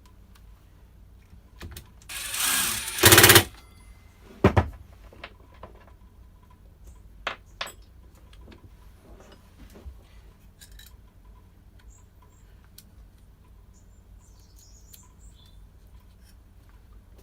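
Workshop bench sounds while a strimmer is being reassembled: a loud, harsh burst lasting about a second and a half, a few seconds in, then a sharp knock and scattered small clicks and taps of tools and parts.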